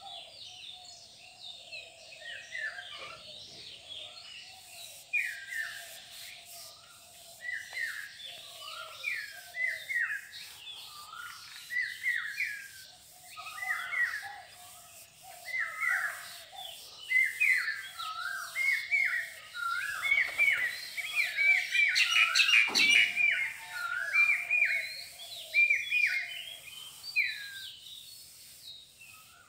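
Birds chirping and calling, with many short hooked notes repeated over and over and a lower run of notes beneath them. There is a single sharp knock about three-quarters of the way through.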